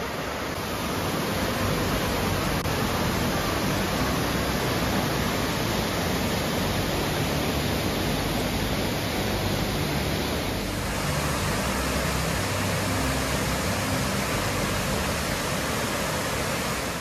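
A waterfall's steady rush of falling water, its tone shifting slightly about ten seconds in.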